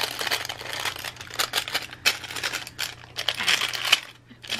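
Clear plastic packaging sleeves crinkling as hands open them, with rapid irregular crackles that die down about four seconds in.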